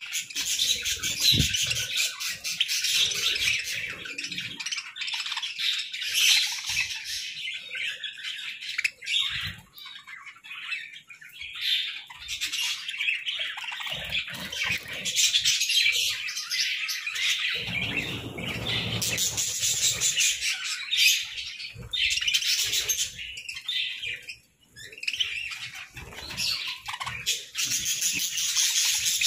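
A flock of budgerigars chattering and chirping, many birds calling at once in a busy, high-pitched warble.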